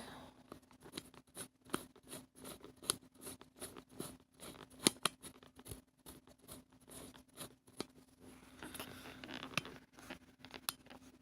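Irregular small clicks, taps and scrapes of an object being handled and adjusted close by, several a second, with a sharper click about five seconds in.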